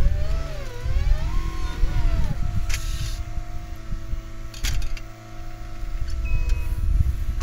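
Caterpillar 259D3 compact track loader working, its four-cylinder diesel engine dipping and rising in pitch over the first two seconds as it takes and sheds load, then holding steady. Two sharp knocks stand out along the way.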